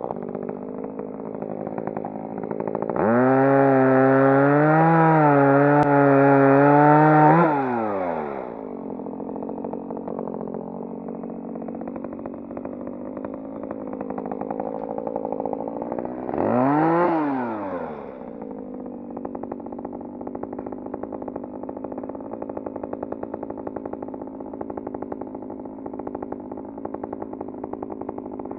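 Ryobi ES 3035 electric chainsaw spinning up, running about four and a half seconds with its pitch wavering, then winding down. A second short burst comes about halfway through, while a steady engine hum continues underneath.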